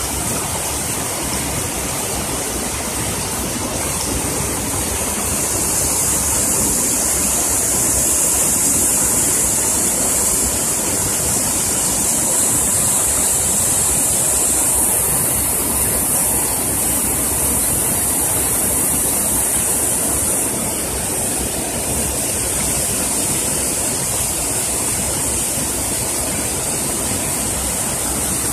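Storm runoff rushing down a rocky slope in a small torrent after heavy rain: a steady, fairly loud rush of water.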